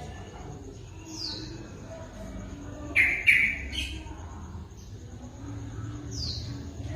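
Small birds chirping: a short high chirp sweeping downward about a second in, a louder burst of several chirps about three seconds in, and another downward chirp near the end.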